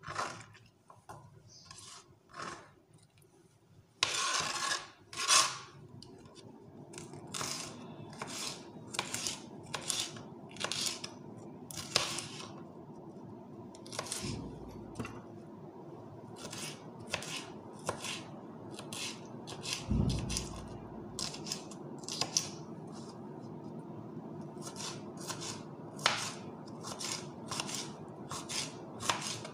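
Kitchen knife chopping green pepper on a plastic cutting board: a long run of sharp taps, roughly two a second.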